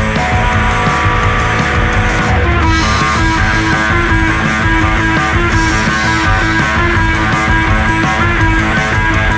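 Loud rock music: guitar-driven band track with a steady beat. Its high end drops out briefly about two and a half seconds in.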